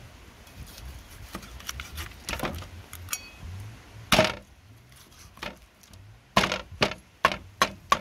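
Meat cleaver chopping through a raw chicken onto a wooden chopping block: a few light knocks, one loud chop about four seconds in, then a quick run of about five heavy chops near the end.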